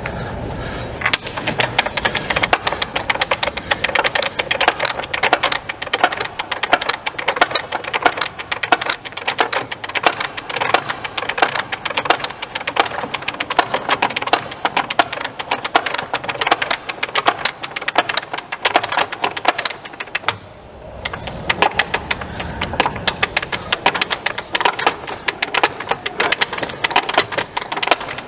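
Hand ratchet wrench clicking rapidly and continuously as it works the fasteners of a tank's return roller. The clicking pauses for about a second about two-thirds of the way through, then carries on.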